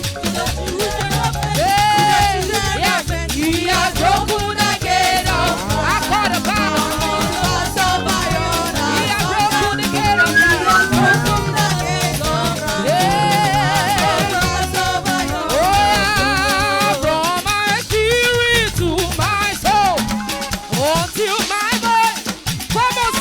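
Choir praise music: voices singing with wavering, gliding notes over a band with shaker percussion and a bass line.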